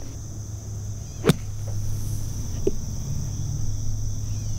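Greenside bunker shot: one sharp strike of a golf club through dry, powdery sand and ball about a second in. Crickets chirp steadily throughout, over a low steady hum.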